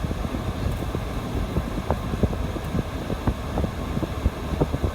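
Steady low rumble of a vehicle's engine running, with wind buffeting the microphone and scattered light clicks.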